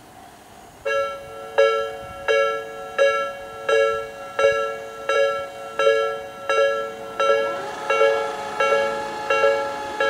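Electronic railway level-crossing warning bell with an Odakyu-style tone, starting about a second in and striking a multi-tone chime about every 0.7 seconds. From about seven seconds in, a second held tone overlaps the chimes.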